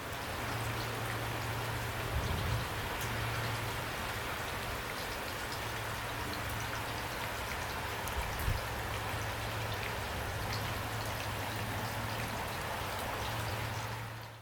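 Heavy rain falling steadily, a dense hiss of drops over a low steady hum, with a couple of soft thumps about two seconds in and again just past the middle.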